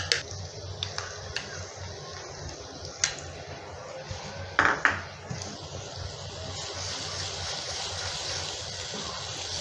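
Onion-tomato masala sizzling in hot oil in a pan while a wooden spatula stirs it, with a few light clicks of the spatula. About four and a half seconds in come two knocks on the pan, and the sizzling grows stronger once yogurt is stirred into the hot masala.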